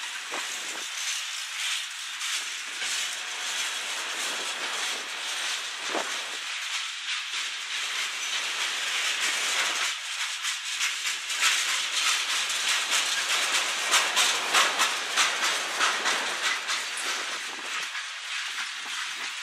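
Freight cars rolling past: steel wheels on rail with a steady hiss. About halfway through, a louder stretch of quick clicking and clacking begins.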